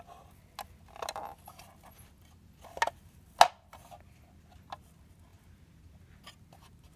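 Scattered light clicks and knocks of a small plastic toy rabbit hutch being handled, the loudest a sharp click about three and a half seconds in.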